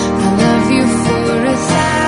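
Music with guitar playing under a gliding melody line.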